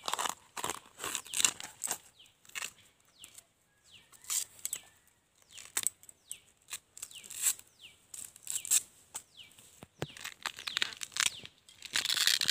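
Husk sheaths being torn and peeled by hand from a fresh bamboo shoot: irregular crackling, tearing and snapping strokes, densest near the end. Short falling bird chirps sound in the background.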